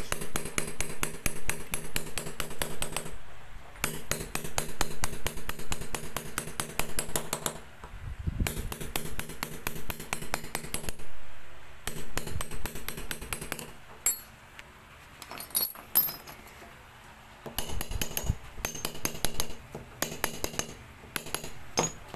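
Small hammer rapidly tapping a steel chasing punch on a brass sheet backed by pitch: quick runs of ringing metallic clinks with short pauses, thinning to sparser taps in the last few seconds. This is the shading (sombra) pass of brass repoussé work, texturing the leaf lines so the embossed design stands out.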